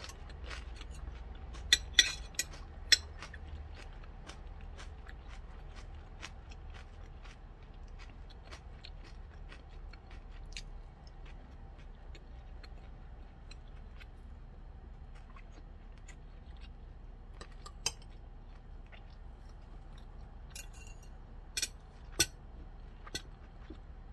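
Metal spoon and chopsticks clicking against a ceramic rice bowl and plate while eating, with a few sharp clinks about two seconds in and again near the end, and soft chewing between them.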